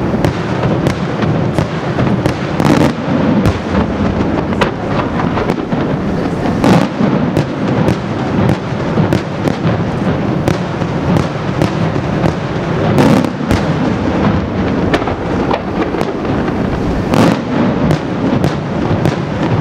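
Daytime aerial fireworks shells bursting in a rapid, continuous barrage: sharp bangs several times a second over a steady rumble, with a few heavier booms now and then.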